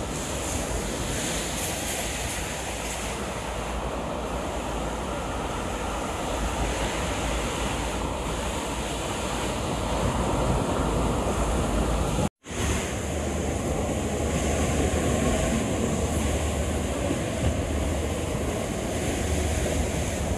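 Sea surf washing onto a sandy beach, a steady rush of breaking waves with wind rumbling on the microphone. The sound drops out for an instant about twelve seconds in.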